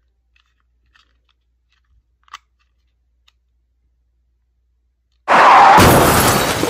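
A few faint clicks as a small plastic laser sight is handled and switched on. About five seconds in, a sudden loud burst of noise, an edited-in sound effect, fades away over a couple of seconds.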